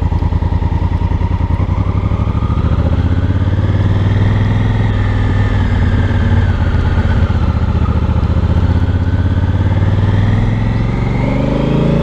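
Honda Africa Twin's parallel-twin engine and exhaust on a slow ride: a lumpy low beat at first that climbs gradually as the bike gathers speed. Near the end it rises quickly and then falls off suddenly, as at an upshift.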